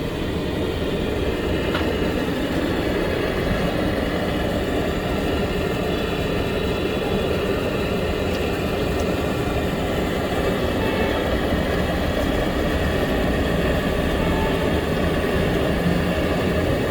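An engine running steadily, with a constant drone.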